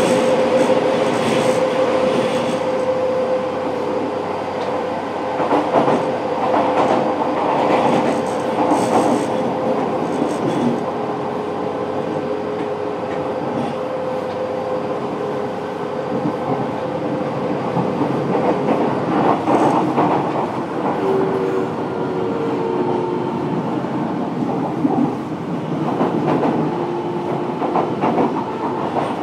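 Fukuoka City Subway 1000N-series car running, heard from inside the car: steady wheel-on-rail rumble with occasional rail-joint clicks. A steady mid-pitched whine fades out about halfway through, and short stepped tones come in near the end.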